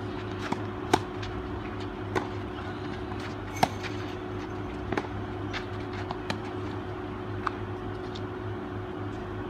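Tennis balls struck by racquets in a baseline rally: sharp pops about every second and a quarter, the loudest about a second in, over a steady low hum.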